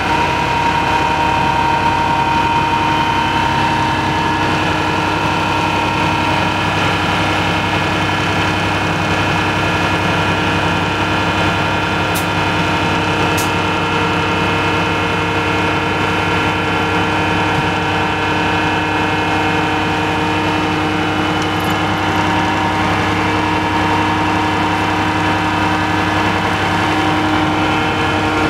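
Engine of a truck-mounted core drilling rig running steadily, a constant hum with steady whining tones, as it powers the rig's hydraulics while the drill mast is raised.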